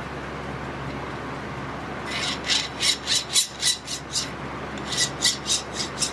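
A hand file rasping across the edge of a freshly milled metal part in quick, even strokes, about four a second. The strokes start about two seconds in and pause briefly in the middle, with a faint ring from the metal.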